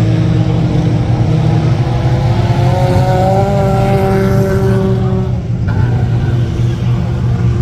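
Mini truck engines running on a dirt track, a steady low rumble; one engine revs with a slowly rising pitch for a couple of seconds mid-way, then drops away.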